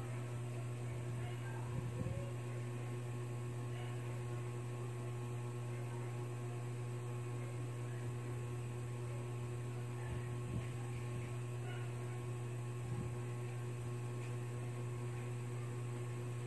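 Steady low electrical mains hum, with a few faint clicks.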